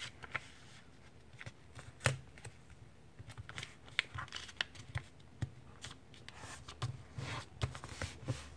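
A sheet of paper being folded and creased by hand: irregular rustling and crinkling, with scattered sharp ticks as the folds are pressed flat against the table.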